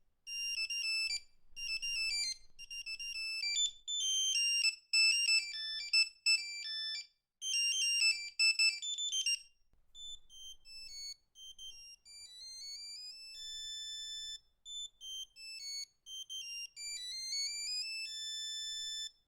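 Nokia 3210 monophonic ringtones: a fast beeping tune stops about halfway through, and after a short pause a second tune starts, with quick rising runs of notes and long held beeps.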